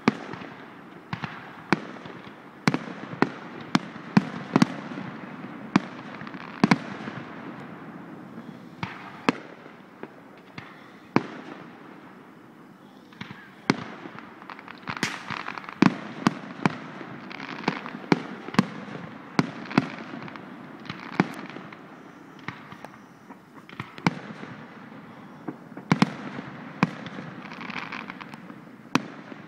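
Aerial fireworks shells bursting: an irregular string of dozens of sharp bangs, some close together, over a steady background noise.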